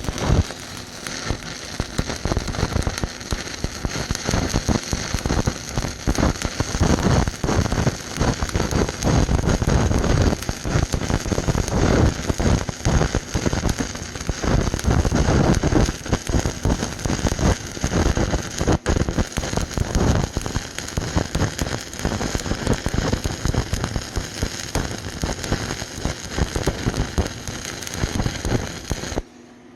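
Stick-welding arc crackling steadily as a 3/32-inch 7018 rod burns at 75 amps on rusted steel pipe. The arc breaks off suddenly near the end.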